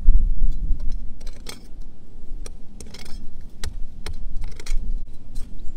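Narrow trenching spade chopping and scraping into stony clay soil: a run of short, sharp chops and gritty scrapes with metallic clinks, about two a second, after a low heavy thud at the start.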